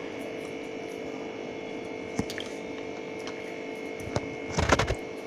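Steady background hum with a few faint clicks, then a short burst of handling noise near the end, as toppings and their containers are handled.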